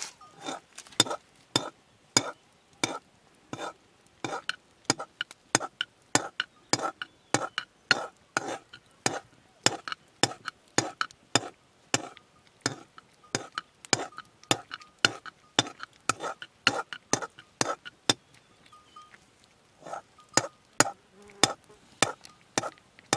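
A metal ladle stirring in a soot-blackened pot over a wood fire, clinking against the pot's rim and sides in a quick steady rhythm of about two to three strokes a second, each clink ringing briefly. The strokes slacken for a moment near the end before carrying on.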